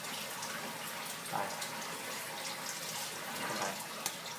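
A steady hiss of running water.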